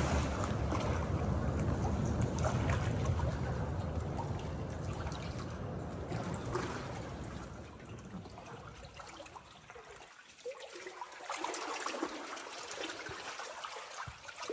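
River water trickling and lapping in a cave, with a low rumble through the first half that fades out about two-thirds of the way through.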